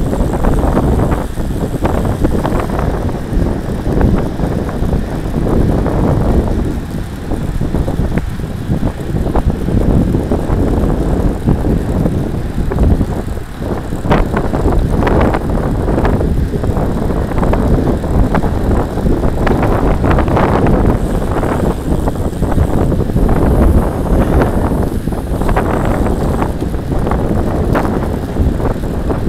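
Road bike riding at speed on tarmac: steady wind buffeting on a bike-mounted camera's microphone, with road rumble and frequent short rattles and jolts from bumps in the surface.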